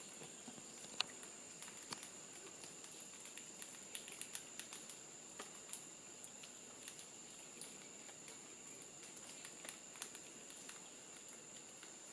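Faint forest ambience: a steady high-pitched insect drone, with many small scattered ticks and rustles.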